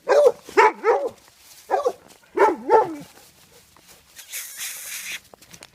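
A dog barking, about five short barks in the first three seconds, followed by about a second of rustling noise.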